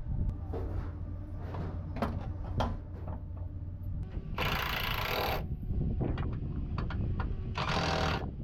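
Workshop tool noise: scattered clicks and knocks over a steady low hum, with two short loud bursts of hiss, one about halfway through and one near the end.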